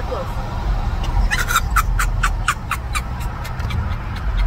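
High-pitched cackling laughter: about ten quick breathy bursts that slow down, over the low rumble of the car on the road.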